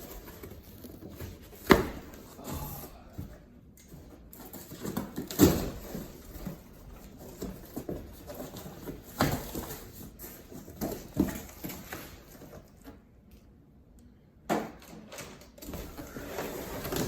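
A cardboard shipping box being opened and its packaging handled: rustling and scraping, broken by a handful of sharp knocks and thumps.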